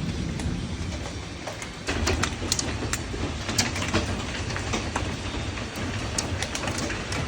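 Wind buffeting the microphone in a steady low rumble. From about two seconds in, scattered sharp taps and clicks come through it.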